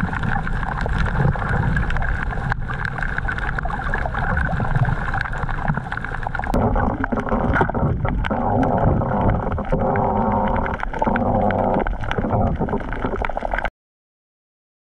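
Muffled underwater sound picked up by an action camera in its waterproof housing: a heavy rumble and gurgling of water with a steady drone underneath. It changes character about halfway through and cuts off suddenly near the end.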